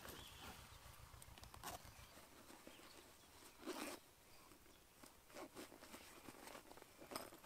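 Faint rustling and handling of nylon camping gear being taken from a backpack, with scattered soft crackles of dry cut grass underfoot; one louder rustle a little under four seconds in.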